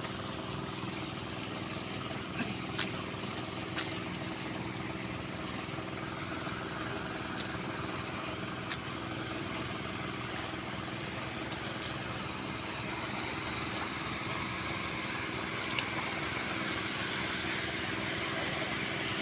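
Small Robin petrol engine running steadily at a constant speed, with a few sharp clicks in the first half and a hissing noise that grows louder from about twelve seconds in.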